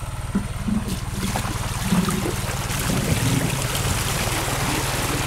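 Water gushing and splashing, building up from about a second in, over the steady hum of a small engine running.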